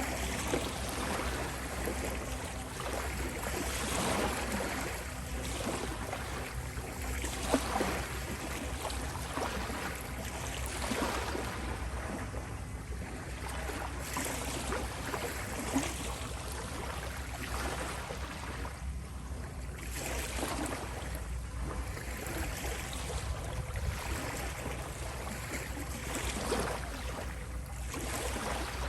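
Ocean waves washing in, a steady rush of surf that swells and eases every few seconds, with steady low tones underneath.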